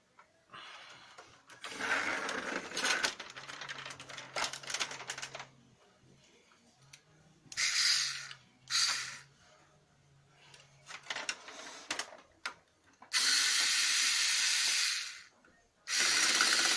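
Lexmark X364dn laser printer's drive mechanism running in several bursts with a ratcheting grind, a fault later traced to the duplex assembly. There are two short bursts around eight and nine seconds in, and a longer steady run from about thirteen seconds.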